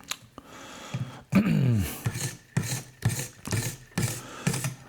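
Oiled 240-grit sharpening stone on a guided knife-sharpening rig, scraping along a knife edge in even strokes, about two a second, starting about two seconds in. Just before the strokes, a short voice sound falling in pitch.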